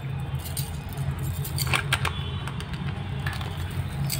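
Metal jewellery clinking and rattling lightly as it is handled, a few short jingles over a steady low hum.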